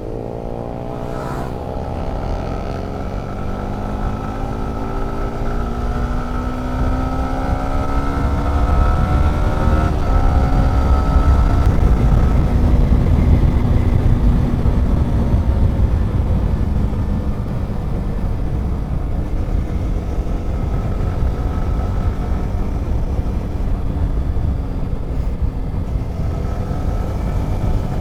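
Motorcycle engine running on the move, its pitch rising steadily over the first ten seconds or so as the bike speeds up, then holding steady under a heavy low rumble.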